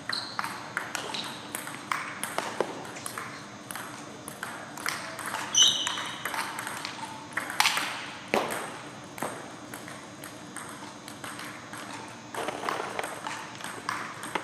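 Table tennis ball clicking back and forth, struck by paddles and bouncing on the table, in a quick uneven patter of sharp ticks through the rallies.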